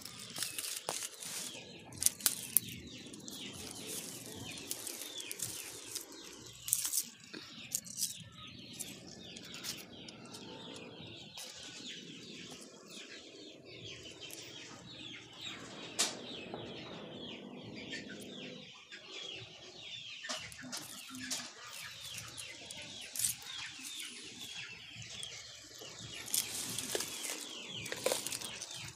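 Backyard ambience: chickens clucking and small birds chirping, with rustling of leaves and sharp knocks from the phone being handled as it brushes through the plants.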